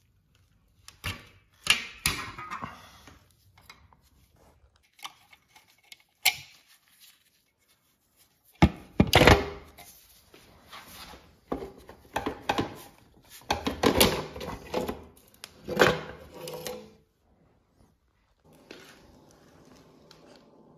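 Steel exhaust springs being pulled off a two-stroke dirt bike's exhaust pipe with a hooked spring puller: irregular metallic clicks, clanks and knocks, the loudest about two, nine, fourteen and sixteen seconds in. A faint steady hum starts near the end.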